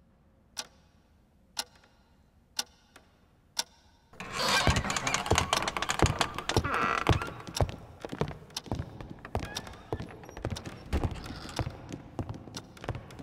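Single hard footsteps on a wooden parquet floor, about one a second. About four seconds in, a dense clatter of many footsteps on the wooden floor takes over as a group of children walks in.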